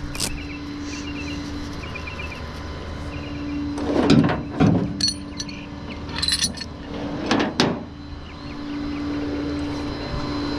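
A few sharp metallic clinks and knocks from about four to eight seconds in, over a steady low hum.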